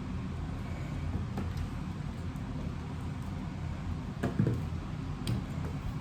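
Steady low background rumble with a few light clicks and taps from small phone parts being handled, the loudest about four seconds in.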